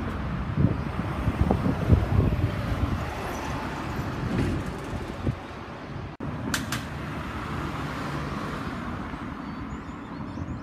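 Low, uneven outdoor rumble with no animal calls. It drops out for an instant a little after six seconds, followed by a couple of short, sharp clicks.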